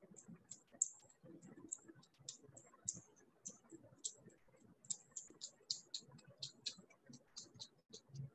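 Faint, irregular high clicks, several a second, over quiet room tone.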